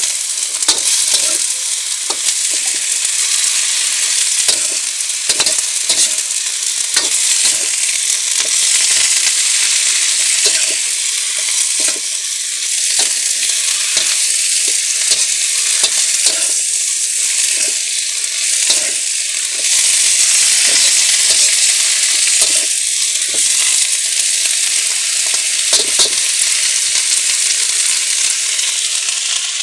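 Cabbage, carrots and green beans sizzling loudly in a steel wok over a hot wood fire, with a metal spatula scraping and clinking against the pan many times as they are stir-fried.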